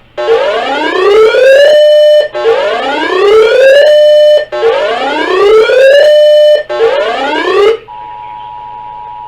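Emergency alert tones on a broadcast: a loud electronic whoop that slides up in pitch over about a second and a half and holds briefly, sounded three times about two seconds apart, with a fourth cut short. Near the end it changes to the steady two-tone EAS attention signal that comes before a warning message.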